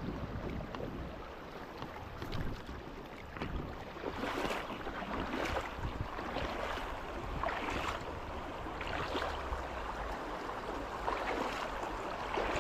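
River water running over rocks in a shallow current, with wind buffeting the microphone, rising and falling in irregular surges.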